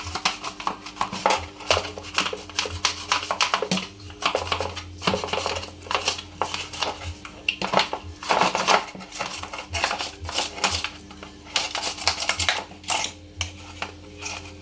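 Irregular clattering and scraping of hard objects being handled, a quick run of clicks and knocks, over a steady low hum.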